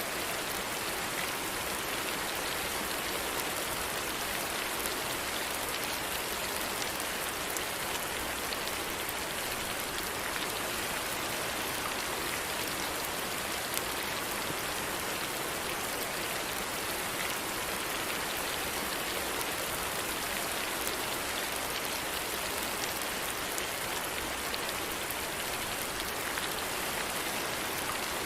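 Steady rain falling on a surface: an even, unbroken hiss flecked with faint individual drop ticks.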